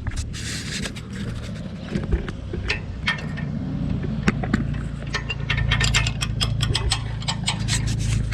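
An engine running steadily, with a string of sharp clicks and rattles over it that come more often in the second half.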